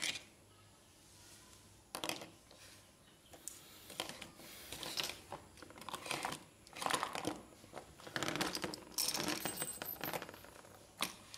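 Hard plastic toy car parts handled and fitted together on a tabletop: irregular clicks, taps and light rattles as wheels and the body shell are pressed onto the chassis.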